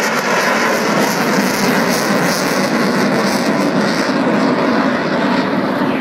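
Lockheed Martin F-22 Raptor's twin Pratt & Whitney F119 turbofan engines, loud steady jet noise as the fighter flies past and away.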